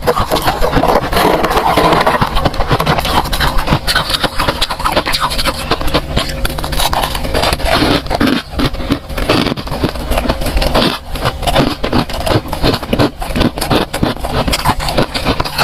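Freezer frost crunching and scraping in a dense, unbroken run of rapid crackles.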